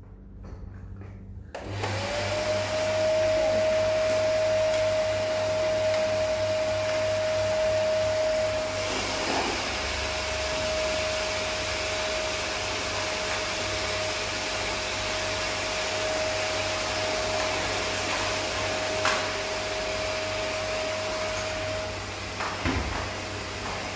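Canister vacuum cleaner switched on about two seconds in, its motor whine rising quickly and then running steadily. A few light knocks come over it, one near the end.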